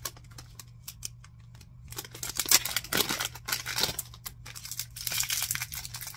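Thin plastic packaging bag being handled and opened by hand: a few sharp little clicks at first, then crinkling and rustling of the plastic from about two seconds in.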